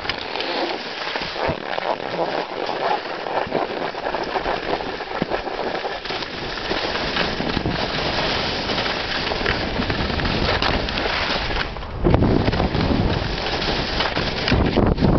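Skis hissing and scraping over tracked snow on a downhill run. Near the end, wind buffets the microphone with a low rumble.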